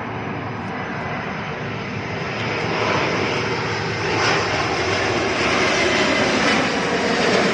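Airplane engine noise: a steady rush that starts a little quieter and swells gradually louder over several seconds.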